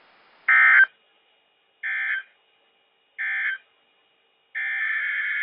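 NOAA Weather Radio SAME end-of-message data: three short warbling digital bursts about a second apart, the first the loudest, sent to mark the end of the severe thunderstorm warning. About four and a half seconds in, a longer steady electronic data tone begins.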